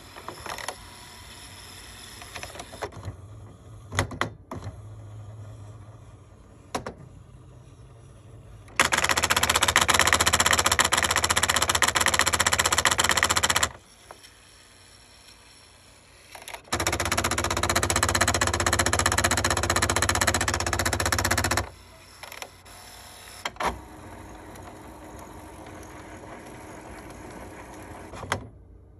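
HP Envy 5010 printer's drive mechanism, a motor turning a worm gear against a white plastic gear, making an awful racket: two loud spells of rapid clattering, each about five seconds long, with quieter running and a few single clicks between. The racket comes from a screw in the mechanism that has come loose.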